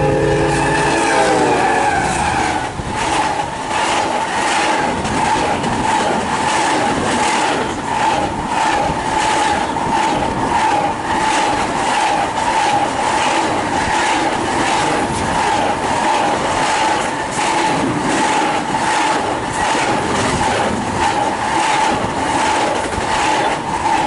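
The lead Union Pacific locomotive's horn drops in pitch as it passes and stops within the first two seconds. Then comes the loud rush of a double-stack intermodal train passing at about 71 mph, with the wheels clicking in a steady rhythm and a steady high ringing tone over it.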